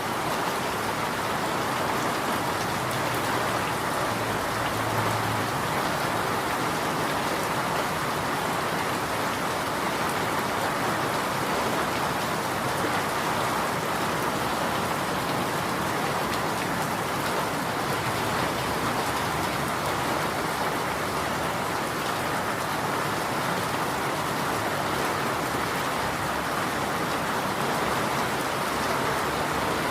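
Steady rain falling, an even, unbroken hiss of drops on a surface.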